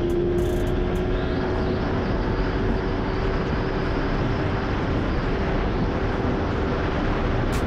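Dirt bike engine running at a steady cruise, its pitch creeping up slightly in the first second or so and then holding level. Heavy wind rumble on the microphone underneath.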